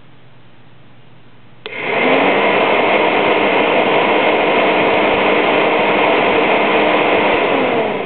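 A motorcycle's electric radiator cooling fan, switched on by a hand toggle switch wired in to bypass the thermostat: a click, then the fan spins up with a rising whine to a loud, steady whoosh, and near the end its pitch starts to fall as it spins down.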